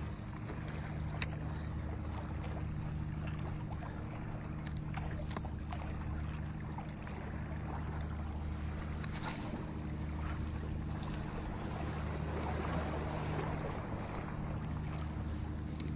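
Sea water washing against a rocky shore under a steady low hum, with a few faint light clicks.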